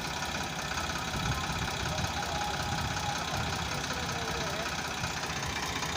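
Heavy diesel engine of an earth-moving machine or tractor idling steadily.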